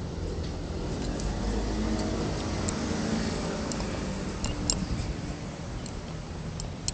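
Street traffic: a steady low rumble, with a motor vehicle's engine hum swelling and fading as it passes around the middle, and a few light clicks.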